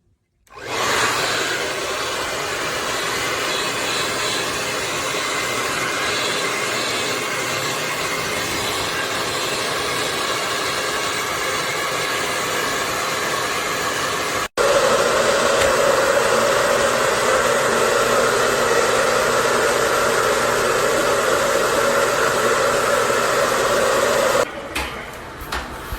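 Conair Infiniti Pro 1875W hair dryer blowing with a steady rushing whir. It breaks off for an instant about halfway and comes back louder, with a stronger hum, then stops about a second and a half before the end.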